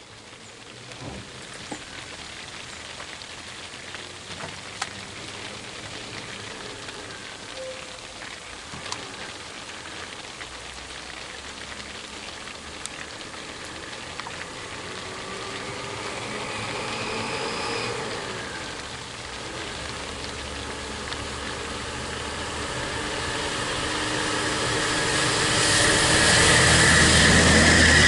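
Motor vehicle on a road, its engine and road noise growing steadily louder through the second half as it draws near, over a constant hiss with a few scattered clicks.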